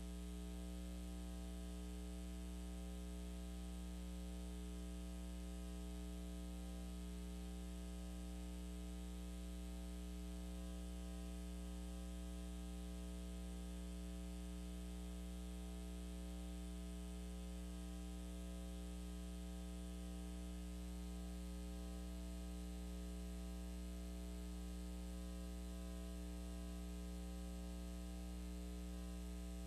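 Steady electrical mains hum with a buzz over it, unchanging and low in level.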